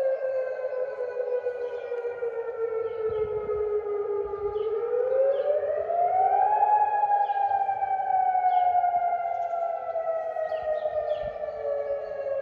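Civil defence siren wailing: its tone slides slowly down, rises over about two seconds near the middle, then falls slowly again. It is the warning siren sounded to announce a curfew.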